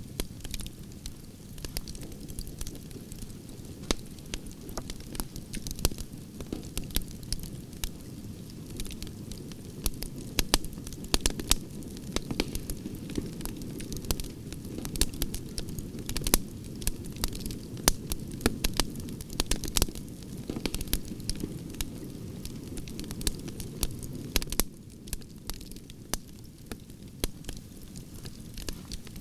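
Wood campfire burning: a steady low rumble of flames with frequent sharp crackles and pops from the burning wood, busiest in the middle stretch.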